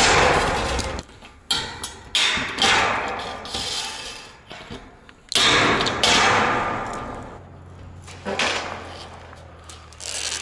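Hand lever hole punch working the seam edge of a steel standing-seam roofing panel: several sharp metallic snaps, each followed by the long sheet-metal panel rattling and ringing for a second or two as it dies away.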